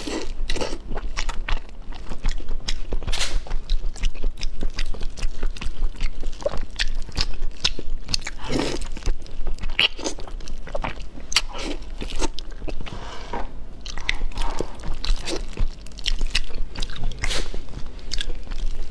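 A person biting and chewing pieces of braised fish held to the mouth, with wet crunching and many short, irregular clicks and crackles, heard close up on a clip-on microphone.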